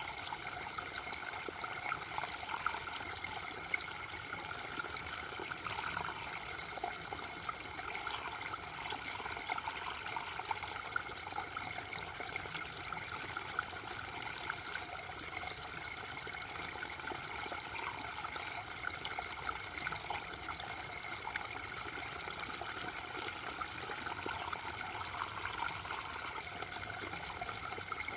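Waterfall running steadily: an even rush of falling water with a constant spatter of small splashes.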